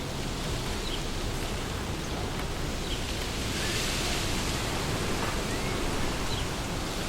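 Wind blowing through tree leaves, a steady rush that swells into a stronger gust in the middle, with a few faint short bird chirps.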